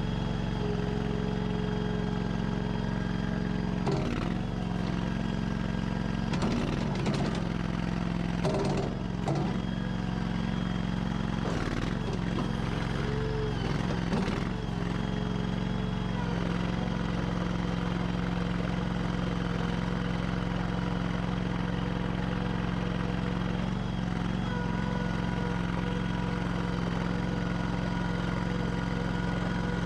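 Honda GX690 V-twin gas engine of a Stag WL322 skid steer loader running steadily. In the first half there are several clanks and brief dips in engine pitch as the loader works.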